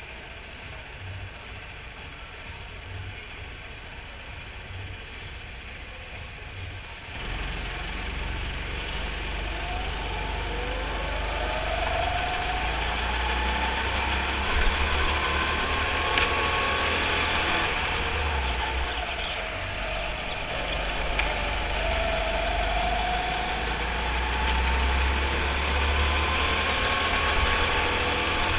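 RiMO rental go-kart engine heard from the driver's seat, running quietly at first and then, about a quarter of the way in, turning suddenly louder as the kart speeds up, its pitch rising and falling through the corners.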